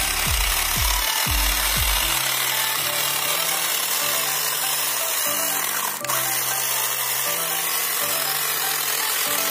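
Corded electric angle grinder converted into a chainsaw, running at speed with its chain cutting through a thick log. There is a brief break about six seconds in.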